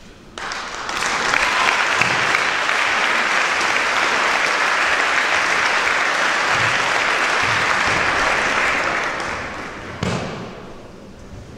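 Audience applauding, starting abruptly and holding for about nine seconds before dying away, with a single thud as it fades.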